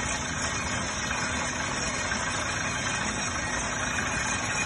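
Truck-mounted water well drilling rig running steadily while drilling a borehole, a constant engine and machinery noise with no pauses.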